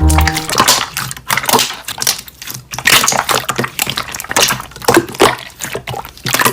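Slime being squished and worked by hand, making irregular sticky crackling clicks and pops.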